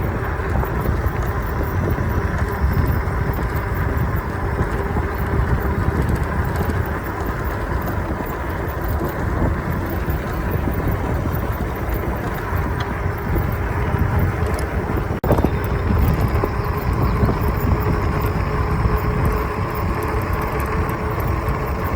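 Steady wind and road noise from riding an Ecotric fat-tire electric bike, dominated by a low rumble, with a brief dropout about fifteen seconds in.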